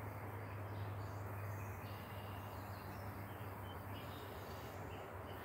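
Quiet background with a steady low hum and faint even noise; no distinct sound events.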